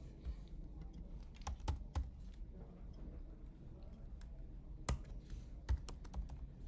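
Typing on a computer keyboard: irregular, scattered keystrokes with a few sharper clicks, over a low steady hum.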